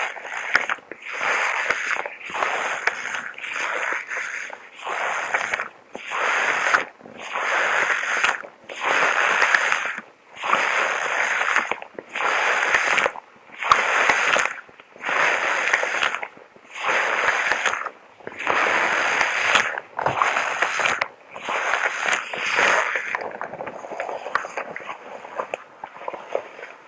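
A person's heavy, even breathing inside a chemical protective suit, a hissing breath about every second, over a faint steady hiss. The breaths grow softer and less distinct near the end.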